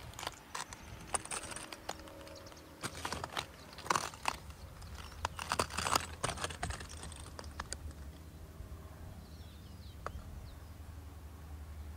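Irregular crunching and clicking for about the first seven seconds, then quieter, over a low steady rumble.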